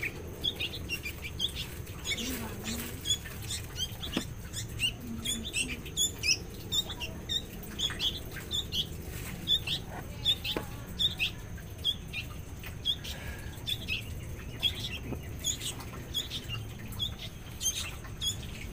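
Small songbirds chirping: a steady stream of short, high-pitched squeaks, several a second, with a few faint clicks.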